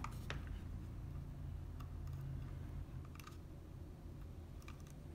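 A few light plastic clicks and taps as the wires and black plug connector of an LED panel's driver are handled and pushed together, over a low steady background rumble.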